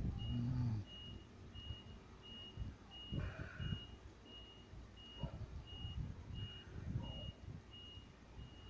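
Reversing alarm beeping evenly, about three short high beeps every two seconds. A low hum under a second long sounds right at the start, over scattered low rumbles.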